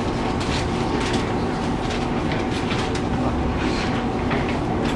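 Taiwan Railways EMU700 electric multiple unit running at speed, heard from inside the car: a steady rumble of wheels and running gear, with faint steady tones and scattered sharp clicks of the wheels over the track.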